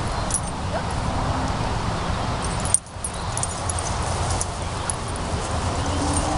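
Wind buffeting the camera's microphone: a steady low rumble with a hiss over it, broken by one sharp click about three seconds in and a brief dip in level.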